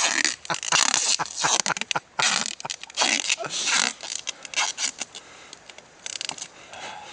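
Irregular scraping and rustling, a quick run of close, short noisy bursts that thins out after about four seconds.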